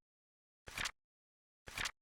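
Flip clock timer sound effect: a short flip-card clack once every second, twice here, with dead silence between.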